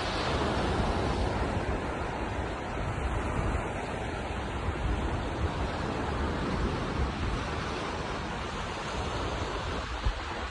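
Steady rushing noise of sea surf and wind, with wind buffeting the phone's microphone.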